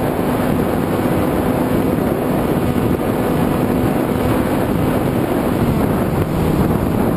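FPV quadcopter in flight, heard through its onboard camera microphone: a steady rush of wind noise with the hum of the motors and propellers underneath, the hum dropping slightly in pitch near the end.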